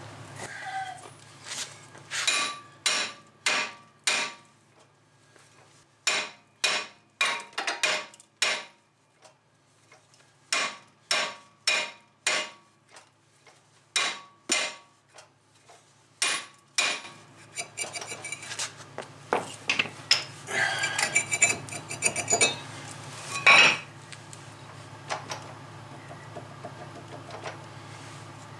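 Hammer blows on a 2005 Chevy Aveo's rusted front brake rotor to break it free of the hub: sharp ringing metal strikes in four runs of several blows each, with short pauses between. From about 17 seconds in they give way to rattling, scraping metal with a few louder clanks as the loosened rotor is worked off.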